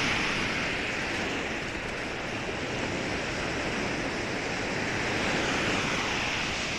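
Small Lake Michigan waves breaking and washing up onto a sandy shore: a steady surf hiss that eases and swells again about five seconds in.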